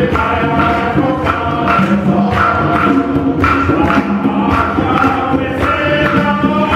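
A group of men singing together in harmony, accompanied by tall hand drums struck in a steady beat of about two strokes a second.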